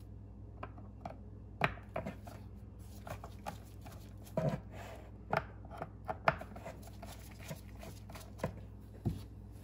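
Scattered, irregular clicks and knocks of a screwdriver taking out the screws on the back of an old trolling motor receptacle and of its wires shifting against the panel, over a steady low hum.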